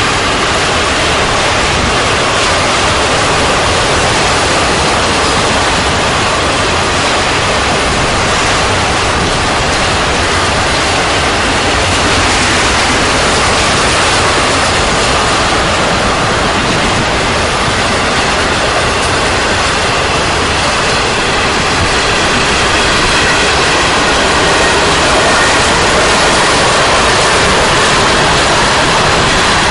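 Freight cars of a long train rolling steadily past: a continuous rush of steel wheels on the rails, with faint high ringing tones in the middle of the passage.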